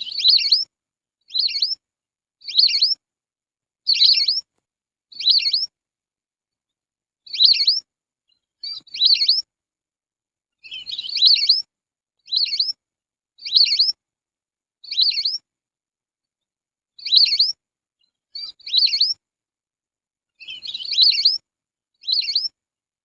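Lesser whistling ducks giving short, high whistled calls, about fifteen in a row, mostly one every second or so with a couple of longer pauses.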